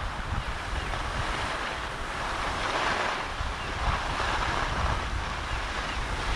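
Wind buffeting the microphone while skiing downhill, with the hiss and scrape of skis sliding over snow that swells twice around the middle.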